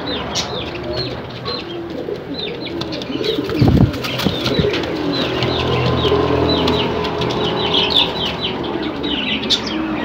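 Fancy fantail pigeons cooing in a wire cage, with a loud flutter of wings about four seconds in. Small cage birds chirp all through.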